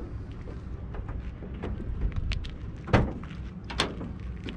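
Rear cargo doors of a Ford Transit van being opened by hand: latch clicks and knocks, the sharpest about three seconds in and another a little under a second later, over a steady low rumble.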